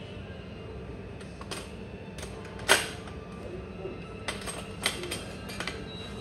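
Irregular sharp clinks of tableware, cutlery and dishes, over a steady background hum; the loudest clink comes a little before the middle.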